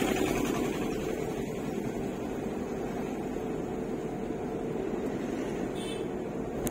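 Steady running noise of the vehicle carrying the camera: engine hum and road noise while driving, heard from on board.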